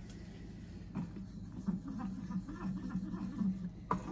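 Wooden spoon stirring a honey-butter glaze in a small saucepan: soft, irregular scraping, with a light knock about a second in and another near the end.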